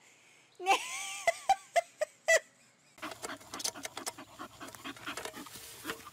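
A short pitched call and a few sharp clicks. Then, about three seconds in, a dog digging in soil: a quick, irregular run of paws scratching and scraping through dirt.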